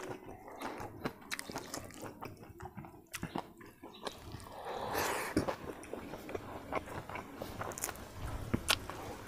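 Close-miked chewing and mouth sounds of a person eating rice with omelet curry by hand: a run of small wet clicks and smacks, with a louder, noisier moment about five seconds in.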